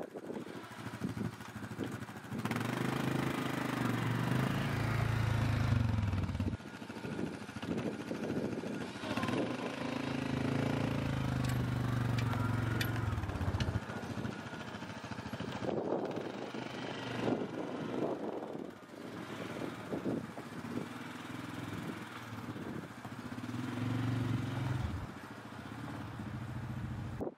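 Four-wheeler (ATV) engine working as it plows snow with a front blade, revving up in several long surges and easing off between them.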